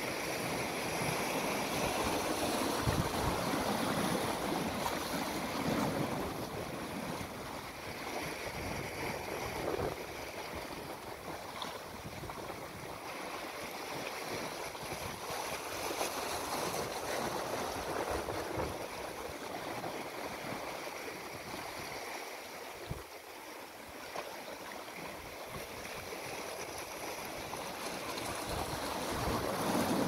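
Sea waves washing into a rocky cove, foaming against the rocks and draining back, the wash swelling and easing in slow surges, loudest near the start and again near the end.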